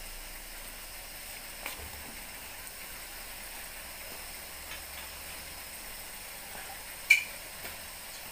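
Chopped vegetables and chicken sizzling in hot oil in a wok, a steady gentle hiss, with a sharp click about seven seconds in.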